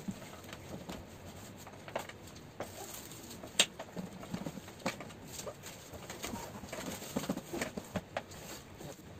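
A cardboard box being handled and worked free of a wooden slat crate: scraping and rustling of cardboard with scattered knocks and taps, the sharpest about three and a half seconds in.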